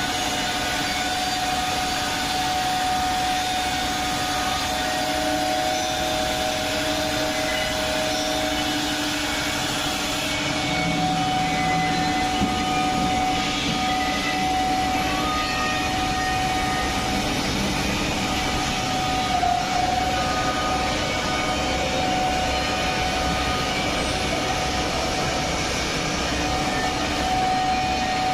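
HT-3000-S2R4 woodworking CNC two-sided drilling and milling machine running, its spindle motors giving a steady whine over a mechanical hum.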